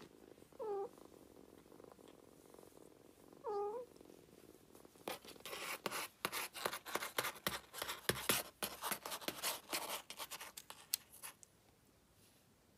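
A kitten gives two short, high mews, each rising and falling, a few seconds apart. It is followed by about six seconds of soft, rapid, uneven pulsing from the cats.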